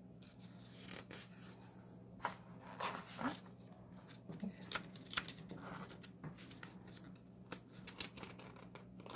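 Faint rustling and scraping of a picture book's paper pages being handled and turned, over a low steady hum.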